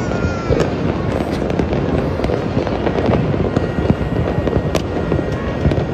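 Fireworks and firecrackers going off continuously: a dense crackle with many sharp bangs scattered throughout.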